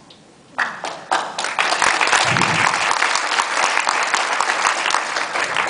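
Audience applauding: after a brief quiet, a few claps about half a second in build into a steady round of applause from many people.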